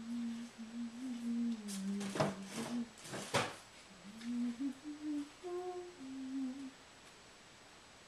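A person humming a tune in held notes with short breaks, with a few sharp clicks between about two and three and a half seconds in.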